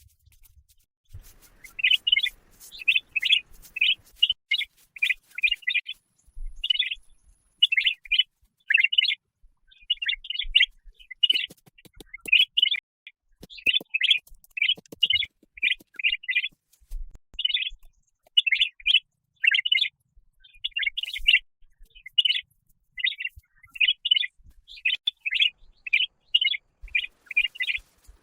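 A bird chirping over and over in short, sharp chirps, several a second, with brief pauses between runs.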